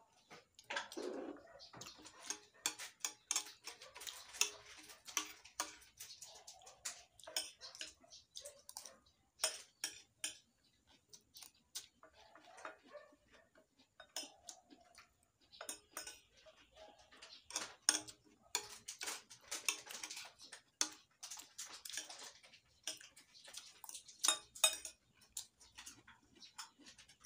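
Close eating sounds: chewing a mouthful of raw onion and ginger with rice, giving many quick, irregular mouth clicks. A metal spoon clinks and scrapes on a ceramic plate now and then.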